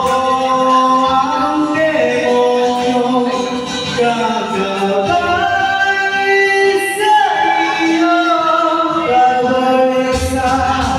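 A man singing into a handheld microphone, amplified through the room's sound system, holding long notes and sliding between pitches.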